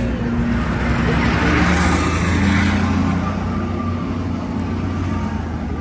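Street traffic dominated by a motor coach's diesel engine running close by, a steady low hum, with a vehicle passing and swelling louder about two seconds in.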